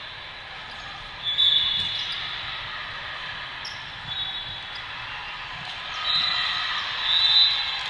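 Indoor volleyball rally in a large, echoing hall: short high squeaks of shoes on the court floor and the ball being played, over a steady din of crowd chatter.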